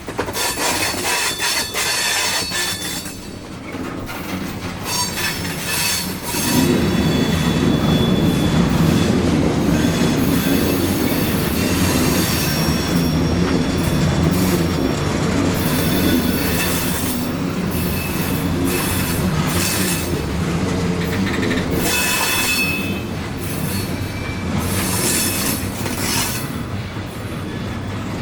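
Coal train's freight cars rolling past on the rails, their wheels squealing in thin high tones over a steady rumble that grows louder about six seconds in.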